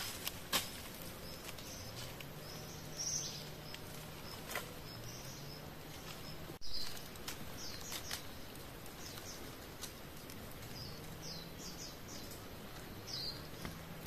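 Quiet forest ambience with short, high bird chirps scattered through, a few faint clicks, and a faint low hum in the background.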